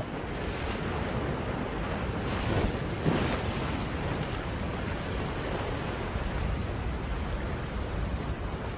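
Ocean waves breaking and washing ashore: a steady rushing with a louder swell about three seconds in.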